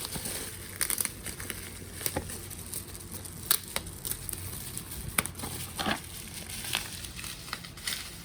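Wrapping being peeled and torn off a card game box by hand: irregular crinkling and crackling with scattered sharp snaps.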